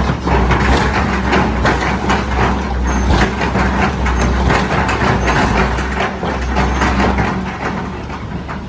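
Heavy diesel construction machine running, its steady low engine drone overlaid with a rapid, irregular clatter of knocks and clanks that eases off near the end.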